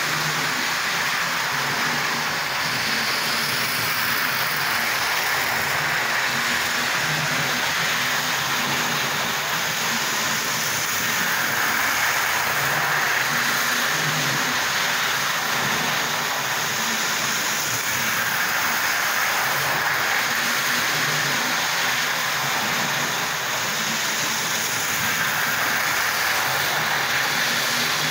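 Model train running on the layout's track: a steady rolling rumble of wheels on rails and the motor's whirr, with irregular low knocks.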